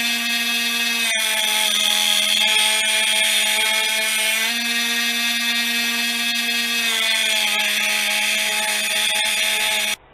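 Cordless drill boring a hole through a stainless steel knife tang held in a vise: a steady motor whine that shifts slightly in pitch a few times, then cuts off just before the end.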